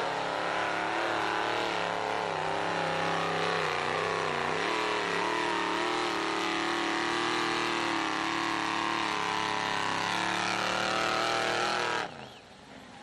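Lifted pickup truck's engine running hard at high revs as it churns through a mud pit, the pitch wavering up and down as the revs rise and fall. The engine sound drops away suddenly about twelve seconds in.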